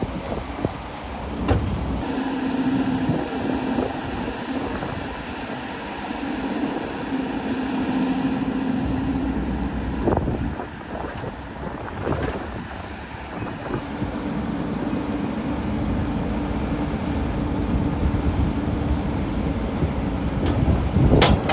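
Excavator's diesel engine running under work, its note swelling and easing in stretches, with a few sharp knocks, the loudest near the end.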